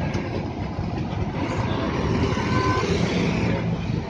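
Heavy road traffic at a busy roundabout: city buses, cars and motorbikes running past in a steady rumble. A faint, brief high tone rises above it about two and a half seconds in.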